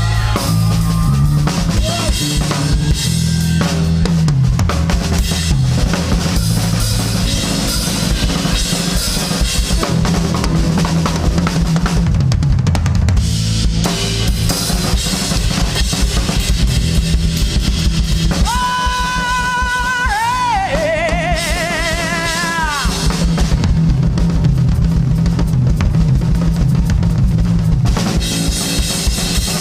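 A live rock band playing, with the drum kit in front: bass drum, snare and rimshots under a moving electric bass line. From about 18 seconds in, an electric guitar holds a long note for a few seconds, bending its pitch.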